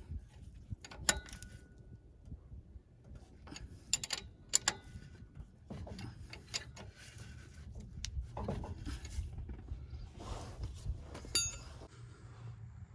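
Metal tools and parts clinking and scraping, with a few sharp metallic clinks that ring briefly, over a steady low hum.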